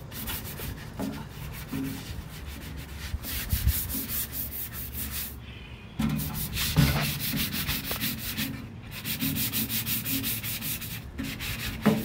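Hand sanding of the rusty steel stand of an old wheel balancer with a sanding block: fast back-and-forth scraping strokes of abrasive on metal, stripping the surface rust before painting. The strokes pause briefly a little before halfway and stop for a moment twice later on.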